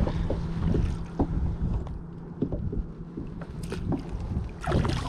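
Sounds of landing a hooked largemouth bass from a kayak: scattered knocks, clicks and splashes, with wind on the microphone. A louder burst near the end.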